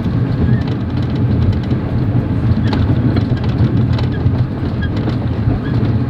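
Steady low rumble of a moving passenger train heard from inside its compartment, with a few faint clicks from the running gear.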